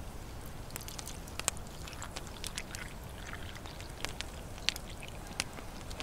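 Campfire crackling: irregular sharp pops and ticks, a few each second, over a low steady rumble.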